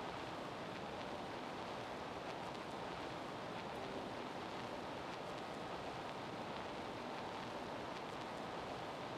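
Steady, even hiss with no changes or distinct events.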